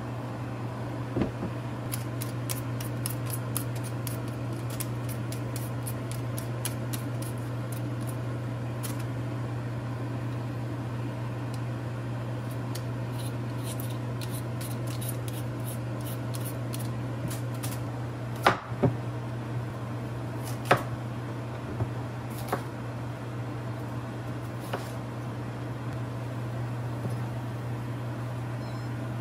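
A hand vegetable peeler scraping a raw potato in quick runs of short strokes, then a few sharp knocks on a cutting board as the vegetables are cut. A steady low hum runs underneath.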